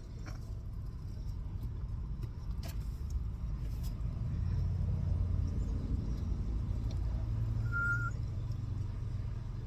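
Low rumble of a motor vehicle that swells through the middle and eases off, with a couple of faint clicks and one short high beep about eight seconds in.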